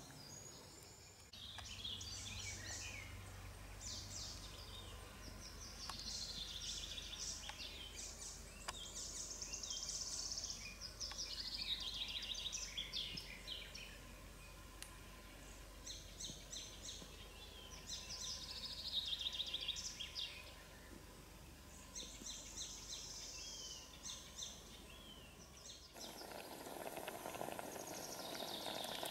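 Several songbirds singing at once: repeated high chirping phrases, rapid trills and descending runs of notes. Near the end the birdsong gives way to a steady hiss.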